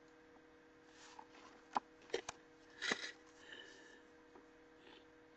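Faint sniffling and breathing from a person crying, broken by a few short clicks and a brief sniff about three seconds in.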